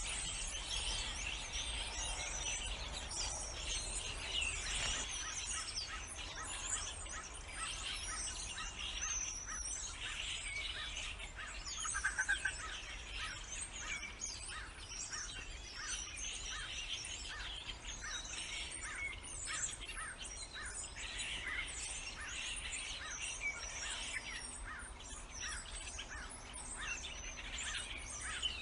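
Many small birds chirping and calling at once in a dense, continuous chorus, with one louder call about twelve seconds in.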